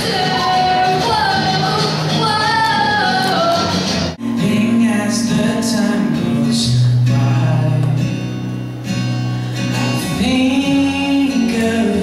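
Live acoustic guitar with a woman singing. About four seconds in it cuts abruptly to a man singing with acoustic guitar.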